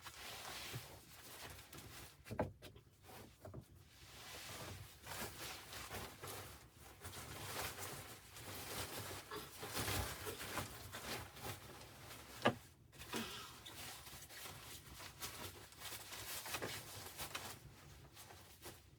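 Indoor handling noises: rustling with scattered small clicks and knocks, and one sharper click about two-thirds of the way through.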